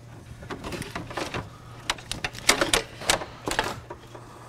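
Stock radiator being worked up and out of a BMW 335i's engine bay: a run of clacks, knocks and scrapes as its plastic and metal parts catch against the surrounding parts, loudest about two to four seconds in.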